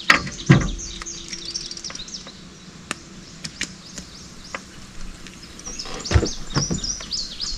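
Birds chirping and calling in the background, with scattered sharp clicks and a few low knocks, the heaviest about half a second in and around six seconds in.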